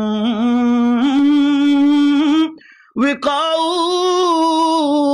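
A solo voice singing a naat unaccompanied, holding long ornamented notes. It breaks off briefly for breath about two and a half seconds in, then sings on.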